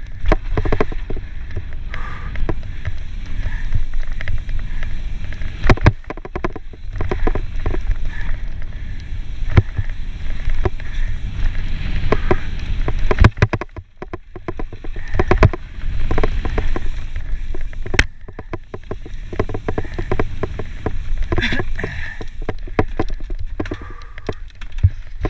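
Wind buffeting the microphone of a mountain bike's on-board camera while it descends a dirt trail, with tyre noise and frequent knocks and rattles from the bike over bumps.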